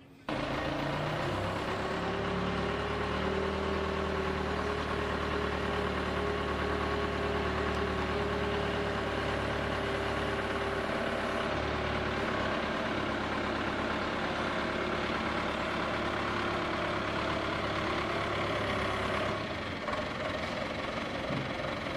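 Forklift engine running steadily while it moves a loaded refrigeration unit onto a truck bed. Its note shifts a few times and drops slightly near the end.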